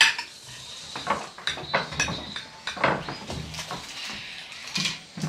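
Mealtime table noises: a utensil and plate clinking and scraping against a glass baking dish as chili fries are served, in a string of short, irregular clicks and knocks.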